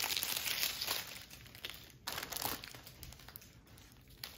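Clear plastic bag crinkling as it is handled, opened to get at the small bags of diamond-painting drills inside; the crinkling is strongest for about the first second, then dies down to a few faint rustles and light clicks.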